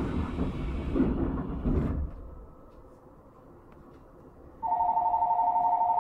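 Electric departure bell ringing as a rapid two-tone trill, starting near the end. Before it, a burst of rumble and hiss fades out about two seconds in.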